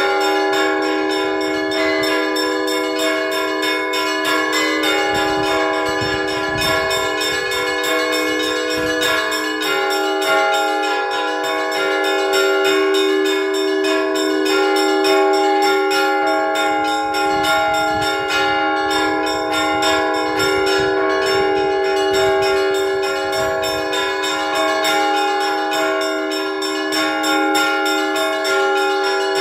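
Orthodox church bells being rung by hand: a fast, unbroken patter of strikes on the smaller bells over the long, overlapping tones of larger bells. This is the Sunday peal that calls the parishioners to prayer.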